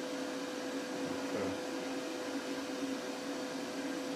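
Steady hiss with a constant mid-pitched hum from the amplifier and speaker system switched on and idling before music is played.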